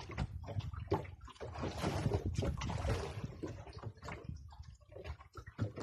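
Seawater slapping and sloshing against the hull of a small outrigger boat in choppy water, with a longer splashing wash from about one and a half to three seconds in, over a low rumble.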